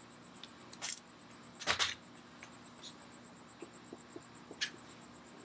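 Small metal parts and hand tools clinking: a sharp metallic clink with a brief high ring about a second in, a short clatter just after, faint ticks, and another ringing clink near the end.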